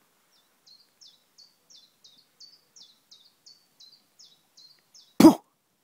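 A songbird calls a quick series of about a dozen short, high chirps, roughly three a second. Near the end a single loud, short sound cuts in, the loudest thing heard.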